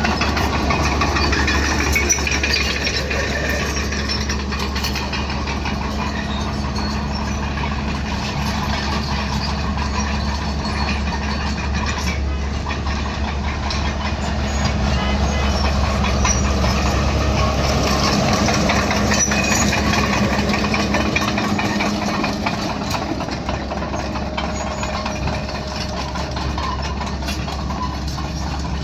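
Bulldozer's diesel engine running steadily with a deep hum, slightly louder for a few seconds in the middle.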